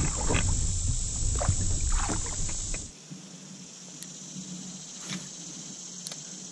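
Rumbling, knocks and scrapes of a sit-on-top kayak being shifted and handled on the water, stopping abruptly about three seconds in. Under it runs a steady high drone of summer insects, and a few faint clicks follow.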